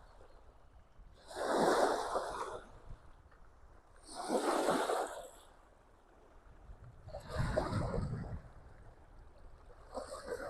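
Small waves lapping and washing against the shore of Loch Ness, four swells about three seconds apart.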